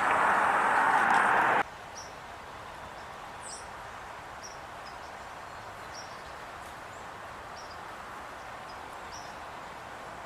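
A loud steady rushing noise, like wind on the microphone, cuts off abruptly about a second and a half in. After that, small songbirds give short, high chip notes every second or so over quiet outdoor background.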